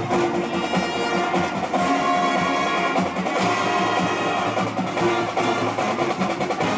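High school marching band playing loud and steady, with held notes over a regular beat.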